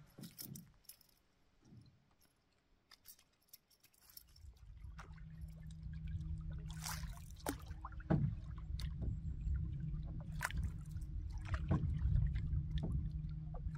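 Water splashing and sloshing at the lake's edge with light handling clicks, over a low steady rumble that sets in a few seconds in and grows louder.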